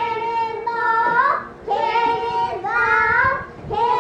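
A young child singing in a high voice: short repeated phrases of held notes that step up and down in pitch.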